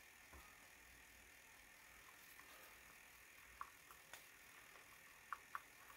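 Near silence: faint room tone with a few light clicks in the second half, a wooden stir stick tapping against a plastic cup while pigment mix is stirred.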